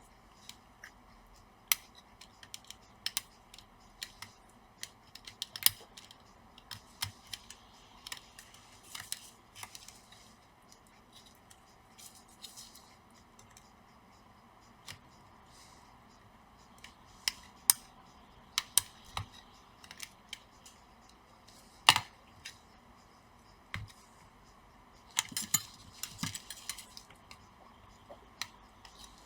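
Scattered light clicks and taps of hands and a tool working inside an open laptop while the battery connector is plugged back in. There are a few sharper snaps, the loudest about two-thirds of the way through, over a faint steady hiss.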